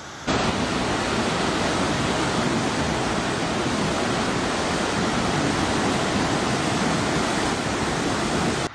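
Steady rushing of a swollen river in flood, cutting in just after the start.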